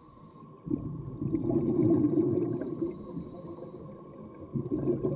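Scuba diver breathing through a regulator underwater: a low bubbling rumble of exhaled air, a hiss of inhalation through the regulator about two and a half seconds in, then exhaled bubbles again near the end.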